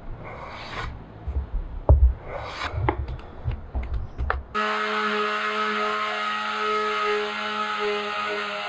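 Hand work on a pine board: irregular scraping and rubbing with soft knocks. About four and a half seconds in, this gives way abruptly to the steady hum of an electric power tool's motor running at constant speed.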